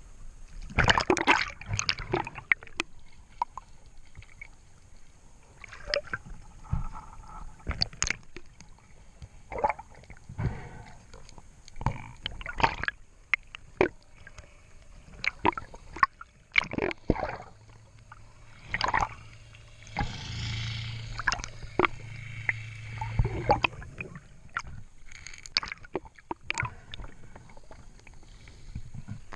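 Water gurgling and splashing, with many irregular sharp knocks and clicks; a low steady hum joins from a little past the middle for about six seconds.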